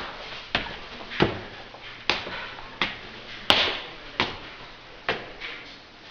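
Footsteps climbing tiled stairs: about seven hard shoe strikes on tile, one every second or less, at a steady walking pace.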